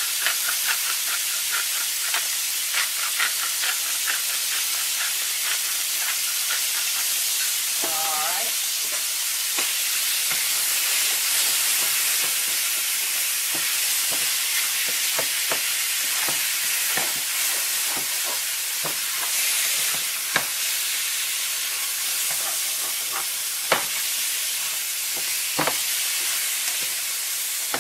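Cubed chicken, sweet peppers and onion sizzling in oil in a frying pan. A quick run of clicks near the start from a pepper grinder, then a spatula scraping and knocking against the pan as the food is stirred.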